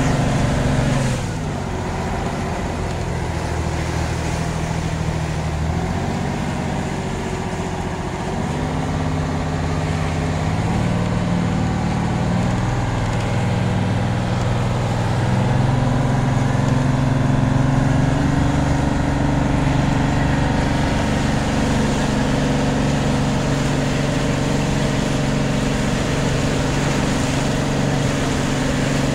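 A tour boat's engine running under way, a steady drone whose note drops about a second in and rises again about halfway through.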